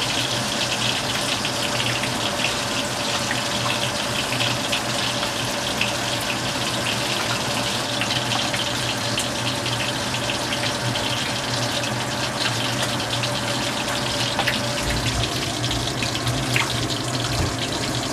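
Kitchen tap running steadily into a metal bowl in a stainless steel sink, splashing water, with a low steady hum beneath.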